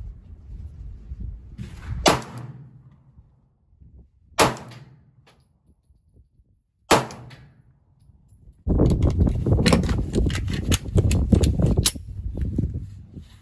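Three 9mm shots from a Glock 43X pistol, about two and a half seconds apart, each with a brief ringing tail. A few seconds later comes about three seconds of loud, rumbling, rustling noise.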